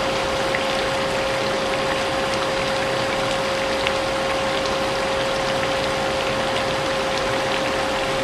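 Vacuum cleaner running steadily, its motor giving a constant whine over a rushing hiss, mixed with rain with scattered drops ticking.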